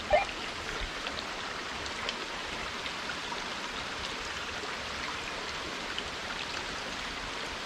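Steady hiss of water, with a few faint ticks scattered through it.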